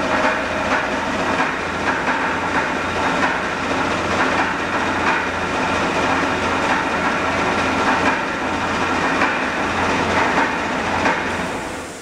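Air compressor running to fill its tank, a steady clattering rattle over a mains-motor hum, shutting off near the end.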